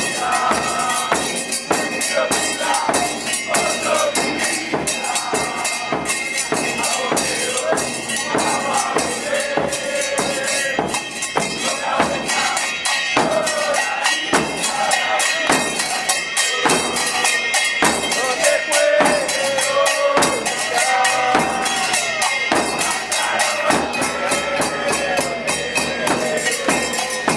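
Football supporters' chant: a crowd singing together over a steady, driving beat of drums and percussion.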